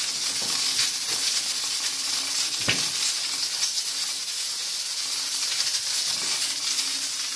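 Steady hiss of steam while the aluminium lid of a pressure cooker is twisted open by hand, with one sharp metallic click about two and a half seconds in.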